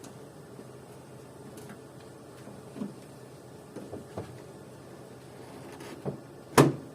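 A few separate knocks and bumps as the cut-free windscreen glass is lifted out of the car and handled, the loudest one near the end.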